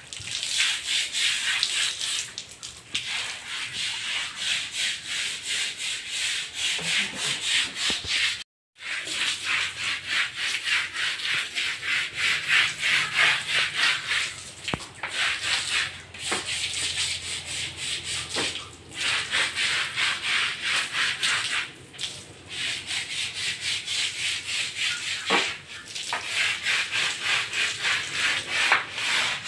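Small plastic hand brush scrubbing a wet, soapy concrete floor in quick back-and-forth strokes, with a brief break about eight seconds in.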